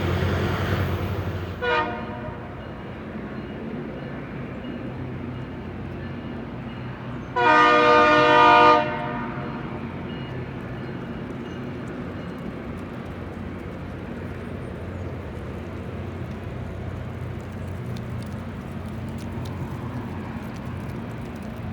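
Train horn on the Loram rail grinder sounding a brief toot, then a single blast of about a second and a half a few seconds later, over the low steady rumble of the train moving. Loud noise dies away in the first second or two.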